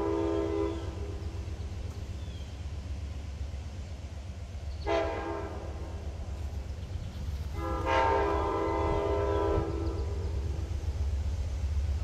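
Amtrak passenger locomotive air horn sounding a multi-note chord at a grade crossing: the tail of one blast fades under a second in, a short toot follows about five seconds in, then a longer blast of about two seconds. A steady low rumble runs underneath.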